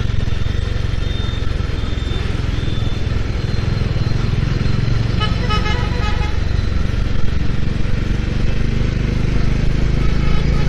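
Bajaj Dominar motorcycle's single-cylinder engine running with a steady low rumble while riding through town traffic. A vehicle horn honks briefly about five seconds in.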